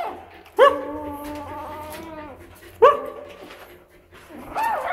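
Newborn puppy crying in high-pitched squeals: a long cry about half a second in, a shorter one just before three seconds, and another rising into a cry near the end.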